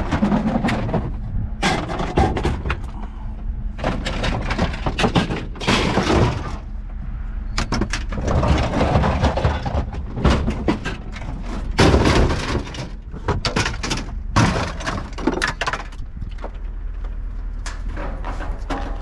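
Scrap plastic and metal pieces clattering, knocking and scraping as they are shifted around by hand in a pickup truck bed: an irregular run of rattles and bumps.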